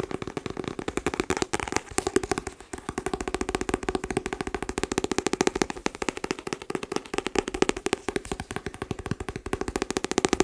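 Rapid, continuous tapping on a hard, hollow object, many taps a second, each tap carrying the object's ringing tone.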